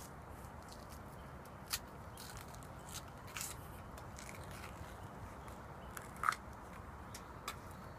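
A banana being peeled by hand: a few short tearing and snapping clicks from the skin, the clearest one about three-quarters of the way through, over a faint steady outdoor hiss.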